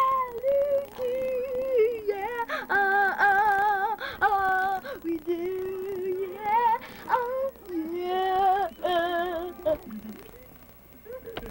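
A boy singing loudly in a high voice, holding long wordless notes with a heavy wobble in mock-operatic style. The singing stops about ten seconds in, followed by a sharp click near the end.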